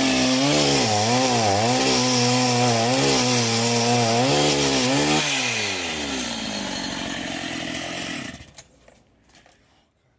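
Chainsaw running at high revs while cutting along a wooden plank to plane it, the engine note dipping and recovering repeatedly as the chain bites. After about five seconds the pitch falls steadily as the engine slows, and the sound dies away about eight seconds in, followed by a few faint clicks.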